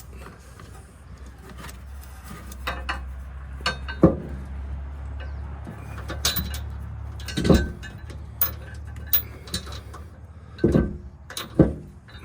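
Scattered metal clinks and knocks as a hitch mounting bolt is worked into a car's frame, with a few louder knocks. A low steady rumble sits underneath through most of it.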